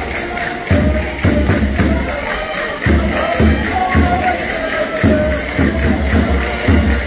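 Live Portuguese folk music: a held melody line over a steady pattern of low beats that come in repeated groups, with faint regular ticking of percussion on top.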